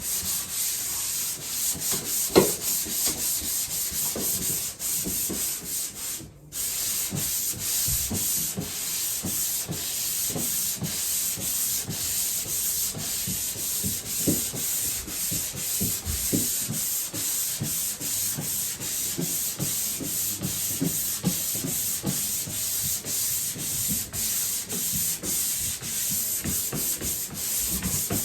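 Drywall being sanded by hand with 220-grit sandpaper: continuous quick back-and-forth scratching strokes. There is a single sharp knock a couple of seconds in and a brief pause about six seconds in.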